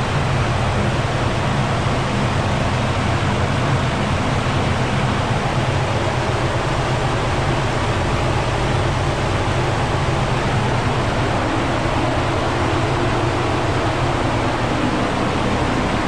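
Loud, steady mechanical rush with a low hum underneath, holding one level and pitch throughout, with no revving.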